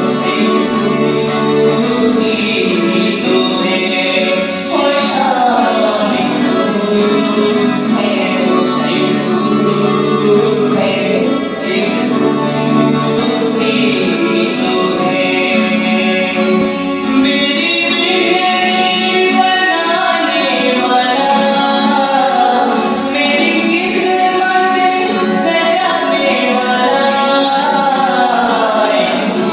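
Hindi devotional bhajan music: a melody that glides up and down over steady instrumental accompaniment.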